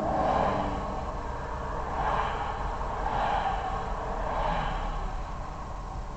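Cars passing one after another on a two-lane highway, four swells of tyre and engine noise, each rising and fading as a car goes by.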